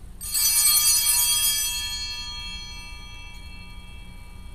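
Altar (sanctus) bells rung once, ringing out brightly and fading slowly over a few seconds. They mark the elevation of the chalice after the words of institution over the cup.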